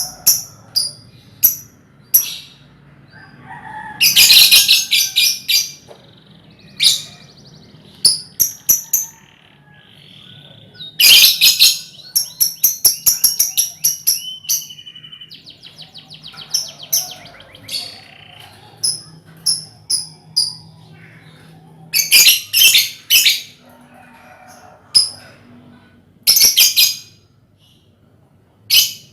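A colony of lovebirds calling: sharp, high chirps with several bursts of rapid chattering and a brief fast trill.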